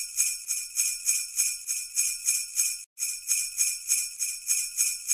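Jingle bells shaken in a steady rhythm, about three shakes a second, with a brief break just under three seconds in.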